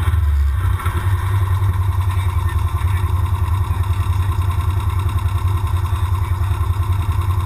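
Side-by-side UTV's engine idling with a steady, fast low pulsing, heard from inside the cab.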